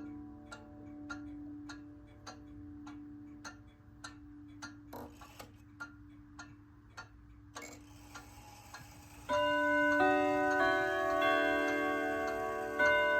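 Junghans/HAC wall clock movement ticking steadily, with a faint ringing tone from a steel chime rod dying away beneath it. About nine seconds in, its long steel chime rods start a quarter-hour chime melody, several notes struck in turn and left ringing.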